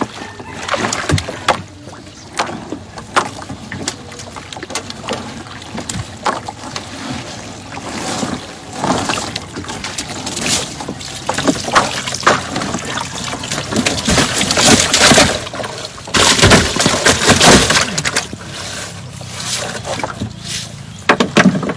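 Water splashing and sloshing, with irregular knocks against the boat, as a net holding a large fish is hauled over the side. The splashing is loudest in two long noisy stretches about two-thirds of the way through.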